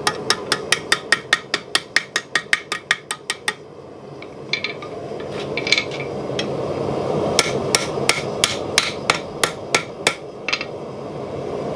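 Blacksmith's hammer striking the red-hot eye of a forged bottle opener on the anvil horn: a quick run of ringing blows, about six a second for three and a half seconds, then a few single blows and a second, slightly slower run. The blows are shaping the ring and opening up its hole. A steady rushing noise grows underneath from about four seconds in.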